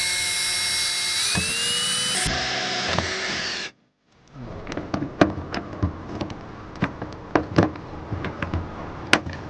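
A cordless drill runs steadily with a motor whine that climbs in pitch about a second in, drilling holes for pop rivets in a side skirt. After a cut it gives way to a run of irregular sharp clicks and snaps from hand pop-riveting, with one loud snap near the end.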